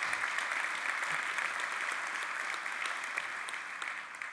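Large audience applauding, a steady dense clapping that starts to die away near the end.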